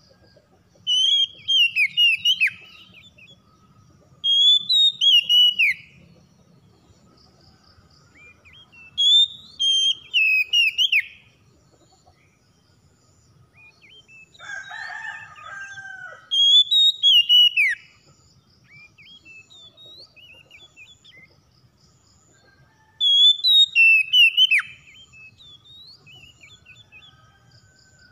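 Oriental magpie-robin singing: five loud phrases of rapid, sweeping whistled notes, each about two seconds long, coming every five to seven seconds. About halfway through there is one quieter, lower call between the phrases.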